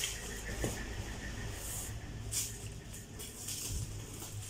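Knife blade cutting and scraping through the plastic tape wrapping of a parcel, in several short strokes, over a low steady hum.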